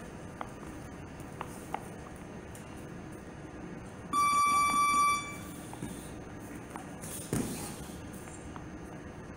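An electronic round timer beeps once about four seconds in, one steady tone lasting a little over a second, signalling the start of a work round. A short thud follows a few seconds later.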